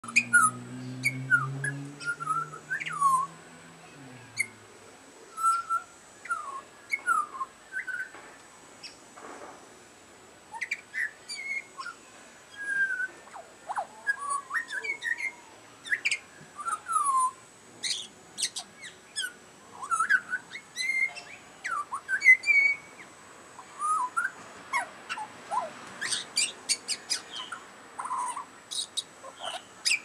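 Pied butcherbird singing: a long run of short, clear, fluting whistled notes that glide up and down, delivered in quick phrases with brief pauses between them.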